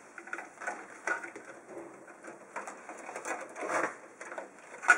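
Irregular plastic clicks and rustling as a ribbon data cable and its connector are handled and pushed onto the pin header of a 3.5-inch floppy drive, with a sharper click near the end.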